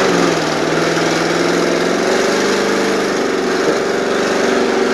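Chevy pickup truck's engine running steadily under load as the truck pushes through deep mud and water in two-wheel drive, with a continuous wash of splashing water and mud.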